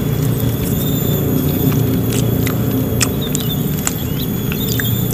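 Close-up eating sounds: scattered wet clicks and smacks of chewing and fingers picking at food, over a steady low rumble.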